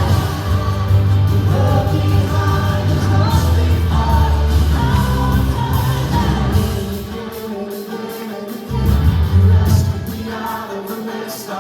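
Worship band and singers performing a gospel-pop song, with voices carrying the melody over the band. The bass drops out twice in the second half while the singing continues.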